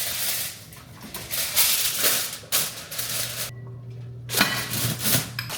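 Kitchen clean-up noises: rustling and clattering in short, irregular bursts, broken by a brief quiet gap a little past the middle.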